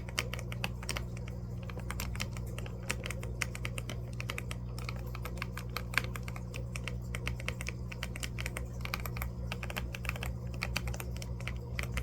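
Computer keyboard typing: rapid, irregular key clicks throughout, over a steady low hum from fish tank equipment.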